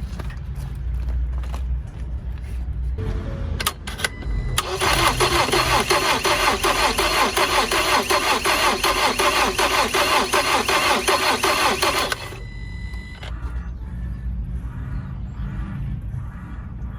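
2019 Ford Transit Connect's engine being cranked by the starter for about seven seconds in an even, pulsing rhythm, then cut off without catching. It won't fire because no fuel is reaching it: the fuel pump's plug is broken off.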